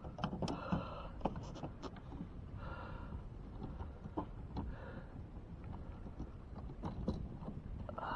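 Heavy breathing after landing a large bass, a breath every couple of seconds, with scattered light clicks and knocks from handling the fish and gear.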